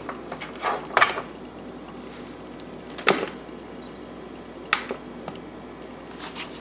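Handling noise: a few sharp clicks and light taps, about a second in, about three seconds in and near five seconds, over faint steady background noise.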